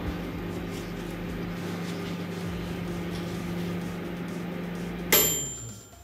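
Sharp microwave oven running with a steady hum; about five seconds in, its timer bell dings once with a ringing decay and the hum stops as the oven switches off.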